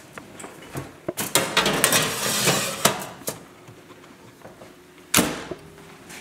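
A metal baking tray clattering and scraping as it is slid onto an oven rack, then the oven door shut with a sharp thump about five seconds in, the loudest sound.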